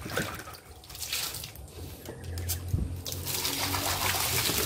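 Water splashing around a plastic cup, then a stream gushing from a pipe onto a wet concrete floor as the cup is rinsed under it, the flow noise getting louder over the last second or two.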